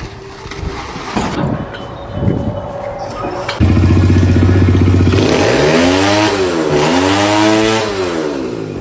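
Light clattering and scraping, then an engine comes in abruptly and loud a little over a third of the way in, runs steadily, and revs up and down twice.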